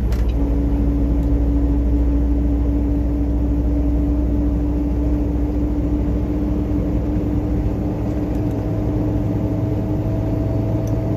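Truck engine pulling up a hill, heard from inside the cab as a steady low drone with road noise. A steady whine comes in just after the start, and a second, higher one joins about two-thirds of the way in.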